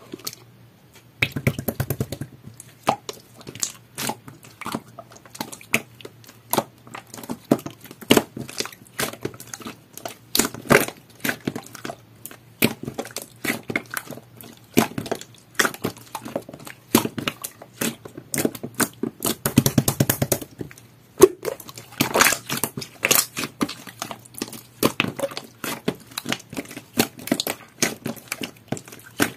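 Jelly-textured slime being kneaded and pressed by hand while pearly mermaid powder is worked in, giving a dense, irregular run of sticky clicks and crackles.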